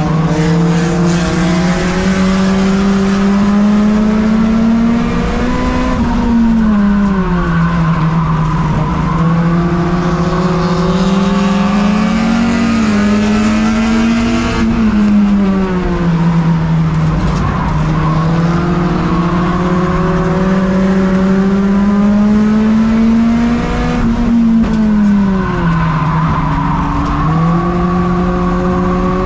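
In-car sound of a tuner race car's four-cylinder engine held hard around a short oval. Its pitch climbs steadily, then falls away sharply three times as the driver lifts for the turns, over steady road and wind noise.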